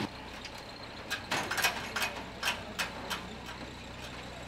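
Handling noise from a sofa wrapped in newspaper: a run of short, sharp crackles and knocks, about eight in two seconds, over a low steady hum.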